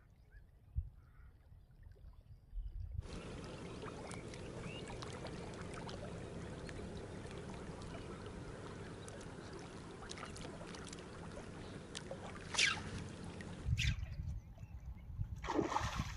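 Faint steady noise of water and wind, with a short sweeping chirp near the end.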